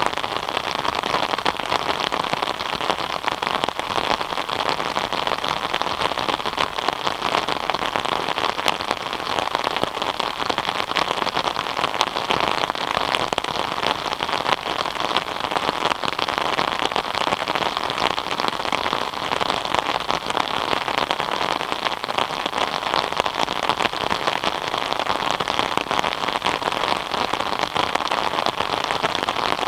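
Steady rain falling and pattering on surfaces, a dense even hiss with countless fine drop ticks.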